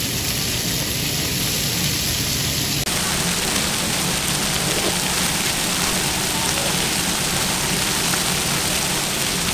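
Chicken thigh steaks sizzling on a large flat-top griddle: a steady, even hiss that shifts in tone about three seconds in.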